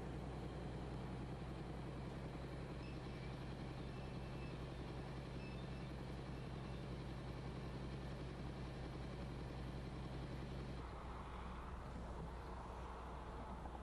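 Heavy diesel machinery engine running steadily at a constant speed. About eleven seconds in, the low engine note drops away and a higher, noisier sound takes over.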